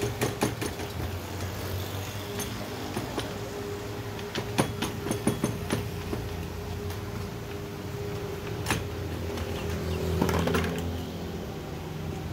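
Light metallic clicks and clinks from hands and tools working on a stripped-down chainsaw engine, scattered and bunched about five seconds in, over a steady low hum.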